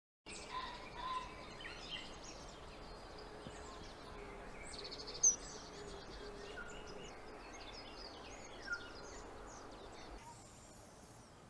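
Scattered faint bird chirps and calls over quiet outdoor ambience, with a couple of sharper chirps in the middle.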